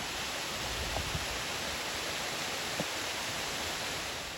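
Steady rush of falling water from Dewey Falls in the canyon, an even hiss with no rises or breaks.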